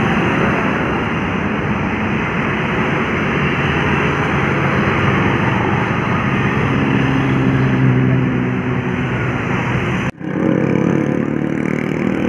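A bus engine running close by amid loud, steady road traffic as the bus makes a U-turn, with a sudden brief dropout about ten seconds in where the recording cuts.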